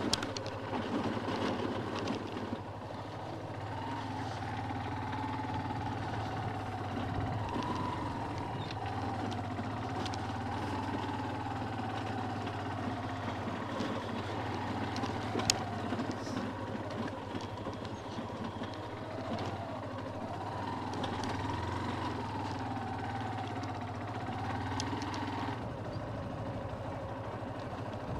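Motorcycle engine running as the bike is ridden slowly over a rough dirt track, its note rising and falling gently with the throttle. There is a single sharp click about halfway through.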